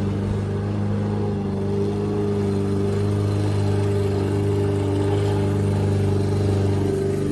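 Walk-behind gasoline lawn mower engine running at a steady speed while mowing.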